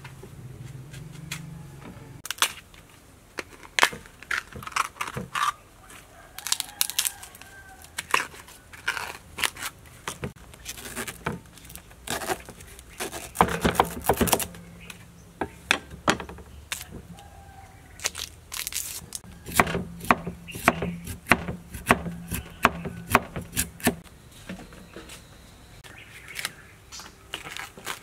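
A large knife cutting into fresh bamboo shoots, giving a run of sharp, irregular crunching cuts, along with the tough husk leaves being torn off the shoots.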